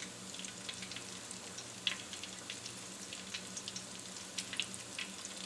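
Breaded mozzarella sticks deep-frying in hot canola oil in a stainless steel pot: a steady sizzle with frequent sharp crackles and pops.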